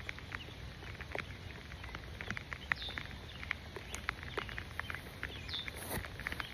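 Raindrops pattering close by as irregular light ticks, over a steady low rumble. Two short falling chirps come about three and about five and a half seconds in.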